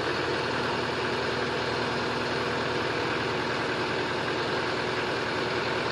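LS4047 tractor's diesel engine running steadily at an even, low speed.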